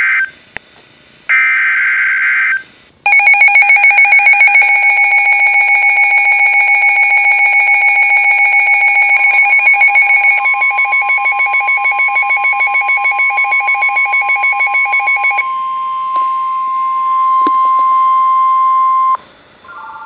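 NOAA Weather Radio Emergency Alert System warning: short, harsh bursts of the SAME digital header, then the weather radios' own alarm sounding a loud, rapid pulsing beep. About 9 seconds in, the broadcast's long, steady, single-pitch warning alert tone comes in and plays for about ten seconds; it signals that a warning (here a severe thunderstorm warning) is about to be read.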